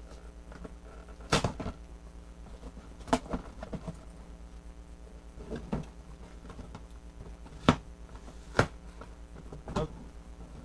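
Large cardboard toy box being handled on a table: sharp knocks and scrapes every second or two as it is turned over, set down and its lid worked open, over a steady low hum.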